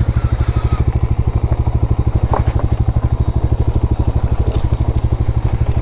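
Motorcycle engine running steadily at low revs, its firing pulses coming about a dozen a second, as the bike creeps along a rough, steep off-road track. A few light clicks and scrapes sound over it.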